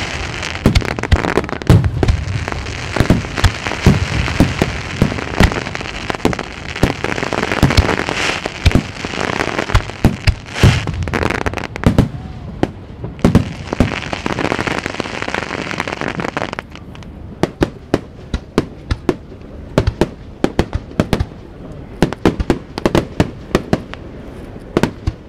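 Japanese aerial firework shells bursting in quick succession: many sharp bangs over a dense crackle. About two-thirds of the way through the thick crackle stops, and separate bangs and pops go on more sparsely.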